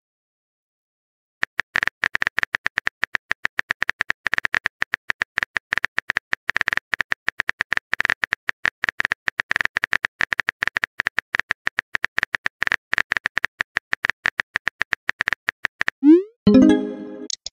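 Rapid, uneven phone keyboard typing clicks from about a second and a half in, as a message is typed out. Near the end comes a rising swoop and a short chime: the message-sent sound.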